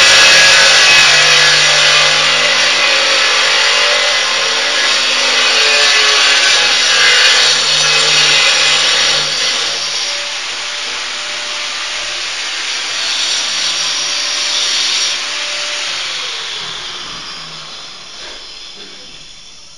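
Angle grinder cutting tile: a steady motor tone under a loud grinding hiss, growing fainter over the second half.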